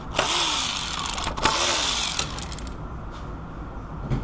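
Power ratchet with a 10 mm socket spinning the water pump pulley bolts loose on a 2006 Pontiac G6's 3.5 V6. It makes two short runs of about a second each, the motor rising and falling in pitch each time, and there is a light click near the end.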